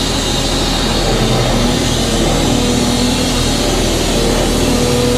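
Tracked dumper's engine running steadily under load, with a few held tones coming and going over it.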